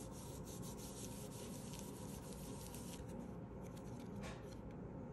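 Faint rubbing of hands pressing glued cardstock pieces flat, with paper brushing against paper and a few light ticks.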